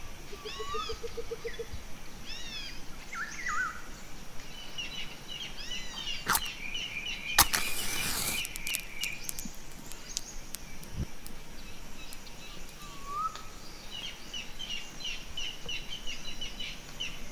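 A match struck on a matchbox: a first scrape about six seconds in, then a sharp strike about a second later and a brief hiss as it flares. Small birds chirp and call throughout.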